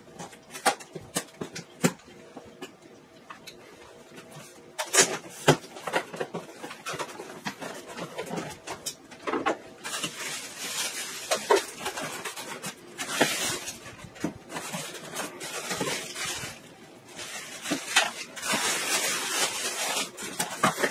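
Unpacking a cardboard appliance box: a few sharp clicks and snaps as the straps and flaps are opened, then repeated crinkling and rustling of the plastic bag and foam packing around the air conditioner.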